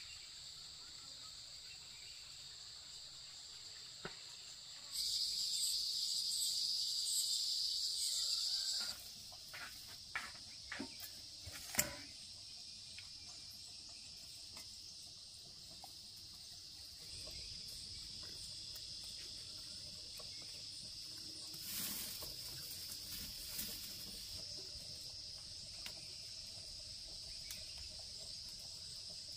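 Steady, high, even insect chorus, with a much louder buzz that starts and stops abruptly about five to nine seconds in. A few sharp clicks and knocks come around ten to twelve seconds in.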